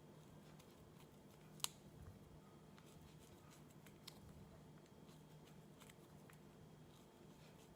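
Near silence: quiet room tone with a low steady hum and a few faint clicks from hands peeling a fig, one sharper click about a second and a half in.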